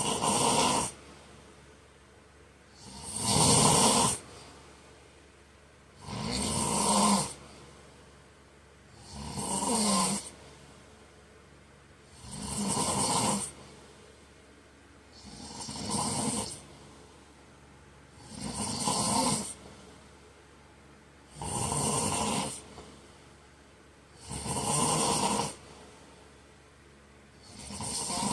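A man snoring in his sleep, a regular snore about every three seconds, each lasting about a second, on the in-breath.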